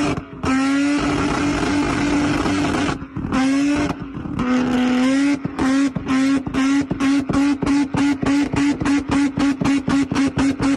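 Infiniti G37's 3.7-litre VQ V6 through an aftermarket exhaust, revved hard and held at a steady high rpm. In the second half the sound chops in and out in quick regular pulses, speeding up toward the end, like bouncing off the rev limiter.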